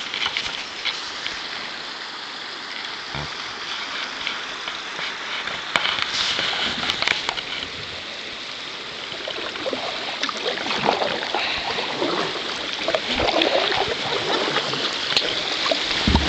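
Water trickling and gurgling, with short, irregular splashes growing more frequent from about halfway through.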